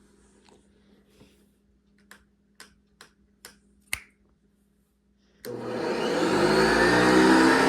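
A few sharp clicks, then a 1980s Hoover Guardsman industrial upright vacuum cleaner switched on, its motor spinning up with a rising whine and running steadily.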